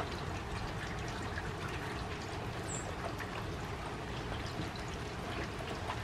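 Rain falling steadily into a puddle and onto wet leaves and grass: an even hiss full of small drop ticks. One brief high peep sounds about halfway through.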